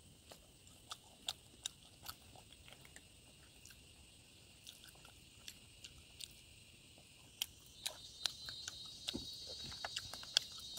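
Faint close-up chewing and mouth sounds of someone eating pork: scattered soft smacks and clicks at irregular intervals, coming more often near the end.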